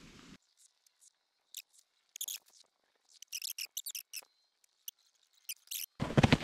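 Mostly hush, broken by scattered faint, short high squeaks and clicks. About six seconds in, loud footsteps crunching on snow-covered ice begin.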